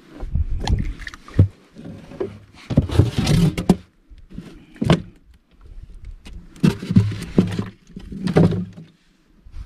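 Styrofoam cooler box being opened and handled: the lid is lifted and shifted, rubbing and knocking against the box in a series of irregular scrapes and thumps.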